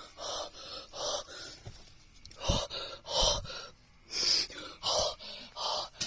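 A man breathing hard in a run of quick, breathy gasps, one or two a second, in excitement.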